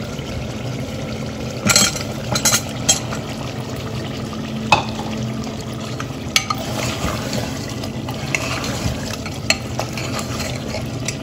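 Meat and onion masala sizzling as it fries in an open pressure cooker, with a steel ladle stirring and clinking against the pot. A cluster of sharp knocks about two seconds in as potato chunks go into the pot, then single ladle knocks as they are stirred through.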